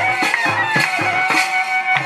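Traditional folk music accompaniment: a drum beating a quick, uneven rhythm under a held melody line that shifts pitch.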